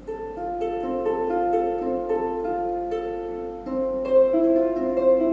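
Harp playing a flowing run of plucked notes that ring on over one another. A little before four seconds in the playing grows louder and a lower held note with a slight waver comes in.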